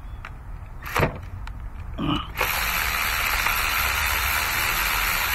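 Cordless ratchet on an extension turning a spark plug out of the engine: a short blip about a second in, then the motor runs steadily from about halfway through.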